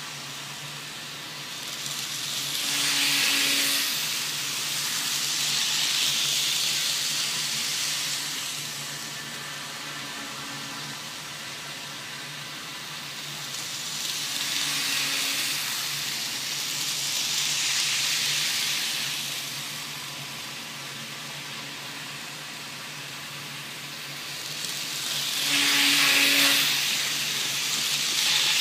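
Model trains running on a tabletop track layout: the rushing running noise of their wheels and motors swells and fades several times as trains pass close by, over a steady low hum.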